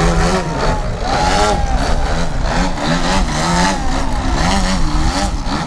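An AJ Laser 230 aerobatic RC airplane's engine running in flight, its pitch rising and falling about once a second as the throttle is worked through the manoeuvres.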